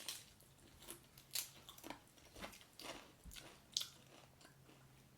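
A person biting into and chewing a pizza-flavoured Pringles crisp: quiet, irregular crunches about every half second.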